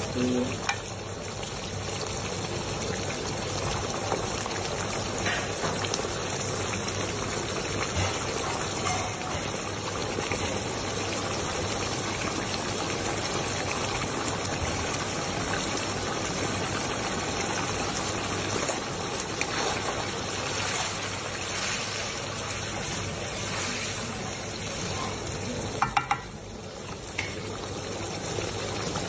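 Tomato and chilli sauce cooking in a wok, a steady sizzle and bubble. Near the end comes a couple of sharp knocks.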